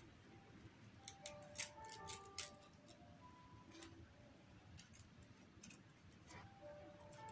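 Faint, slow background music of single held notes, with light crinkles and clicks of crepe-paper palm leaves and their wire stems being handled and twisted together.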